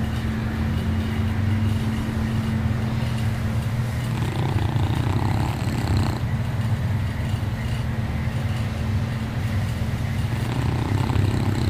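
Dog snoring: a steady, loud, low rumbling drone, with two stronger breaths swelling up about four seconds in and again near the end.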